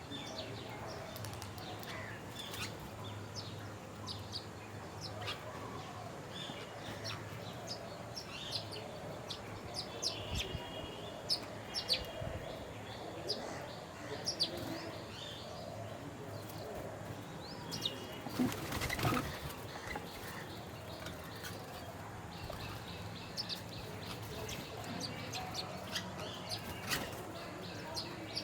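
Wild birds chirping and calling, many short high notes overlapping. About two-thirds of the way through there is a brief, louder rush of noise.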